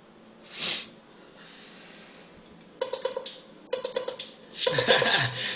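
A big sniff through a nose blocked by a cold, about half a second in. About three seconds in, a music track starts playing back, stop-start at first, then with a full beat near the end.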